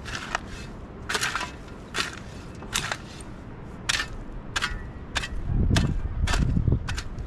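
Steel shovel scraping into stony dirt and scooping it, a dozen or so sharp scrapes at a fairly even pace of roughly one a second or faster; a low rumble joins near the end.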